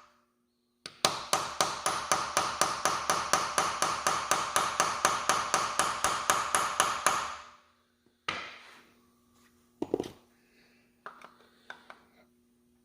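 Hammer rapidly tapping a punch against a stuck threaded valve cap on a Honda ATC 250SX cylinder head to loosen it. The sharp, ringing metal taps come about five a second for some six seconds, followed by two single knocks and a few light clicks.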